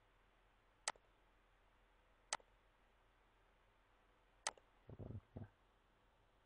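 Three sharp computer-mouse clicks, a second and a half to two seconds apart, over near silence. Two faint low thumps follow just after the last click.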